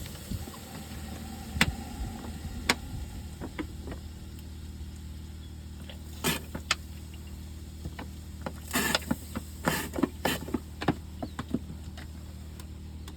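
An engine idling steadily, with scattered knocks, scrapes and rustles of debris being pulled out by hand, in a busier cluster about two-thirds of the way through.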